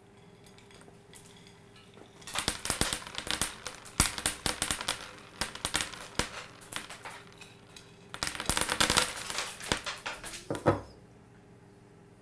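Frozen peas clattering and rattling: a dense crackle of many small hard clicks in two long spells, starting about two seconds in and again about eight seconds in.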